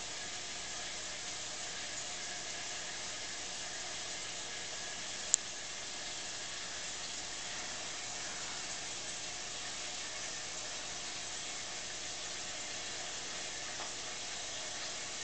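Steady hiss of aquarium water and air bubbles, with one sharp click about five seconds in.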